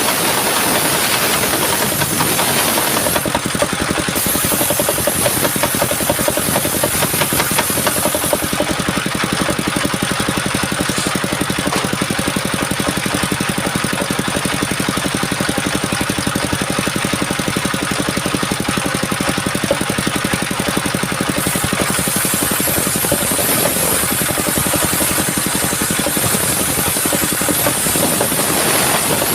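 An engine running steadily with a constant drone, joined by a high hiss from about 3 to 8 seconds in and again from about 21 seconds in to near the end.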